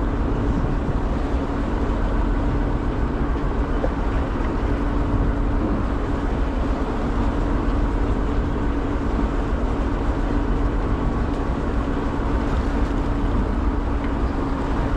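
Fishing boat's engine running steadily: a constant drone with an even hum in it, over a haze of wind and water noise.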